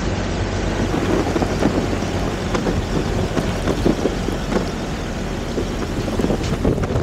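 Land Rover Defenders driving slowly along a wet gravel track: engines running, tyres crunching and clicking over stones, with wind on the microphone.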